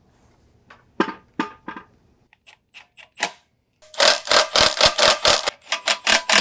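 Hand-tool work on the torque tube and transmission fittings: a few separate knocks, then from about four seconds in a loud, even run of metallic clicks, about five a second.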